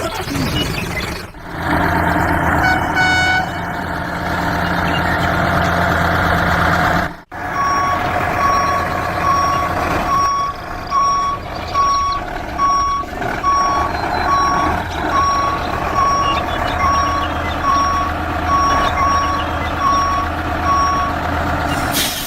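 Truck engine running steadily, then from about seven seconds in a reversing alarm beeps evenly, about one and a half beeps a second, over the engine.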